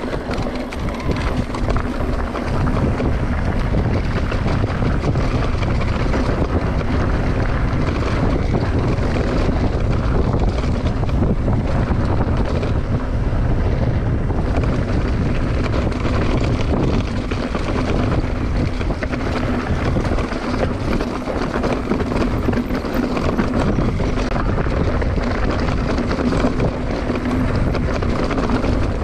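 Mountain bike rolling along a dirt and gravel trail, with wind rushing over the microphone and tyre noise from the loose ground. A steady low hum runs underneath.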